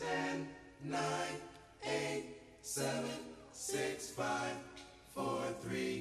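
Male vocal group singing short sustained chords in close harmony, one roughly every second, with little instrumental backing.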